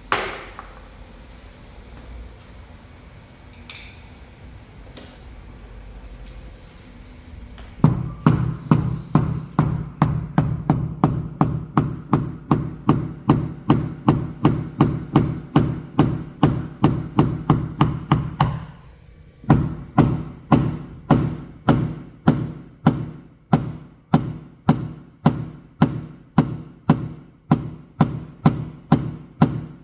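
Paintless dent repair tapping: a tap-down hammer striking the aluminium hood of a BMW 630i in a steady run of light, even taps, about three a second, with a brief pause partway through. A single knock sounds at the very start.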